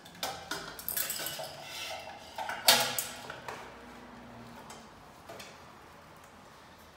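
Small metal parts clinking and tapping against a ceiling fan's metal motor housing as screws and fittings are handled, with a string of quick clicks and one louder clank a little under three seconds in, then quieter handling with a single tap later on.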